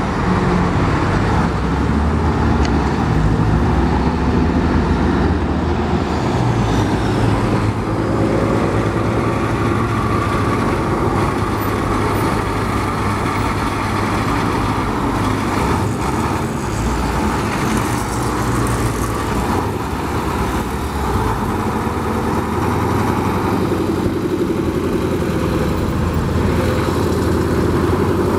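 KAMAZ 53213 truck crane's V8 diesel engine running steadily at low speed, with street traffic passing.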